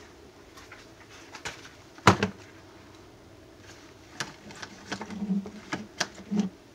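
Sharp knocks and clicks of objects being handled on a countertop: a silicone soap mold set down and a plastic measuring jug picked up. The loudest knock comes about two seconds in, a run of lighter clicks follows later, and two short low hums sound near the end.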